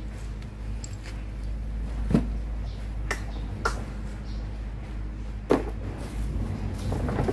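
Four sharp knocks over a steady low rumble, as a monkey clambers on a hard plastic toy ride-on car and plastic table.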